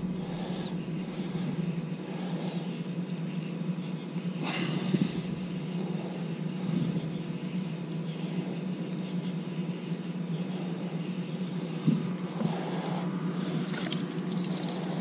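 A steady high trilling chorus of night insects over a low steady hum, with a few faint knocks of handling. Near the end a small fishing-rod bell starts to jingle.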